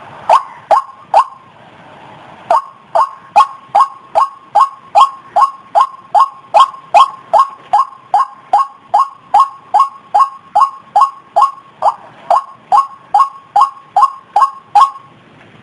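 White-breasted waterhen calling: a short note repeated about twice a second, three notes, a pause of over a second, then a long steady series of the same note that stops shortly before the end.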